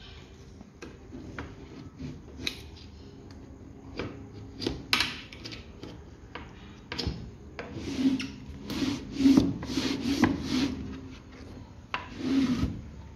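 Volkswagen Beetle door window glass rubbing and scraping in its rubber seals and channels as it is moved up and down, in a series of short strokes that come faster and louder about eight seconds in.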